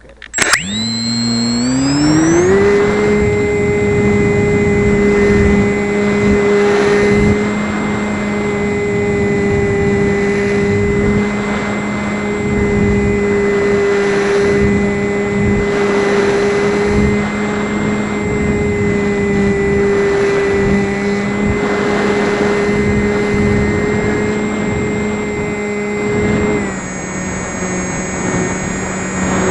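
RC model Cessna's motor and propeller spinning up from rest, its pitch rising over about two seconds, then running at a steady high throttle with a thin high whine above it, easing back slightly near the end.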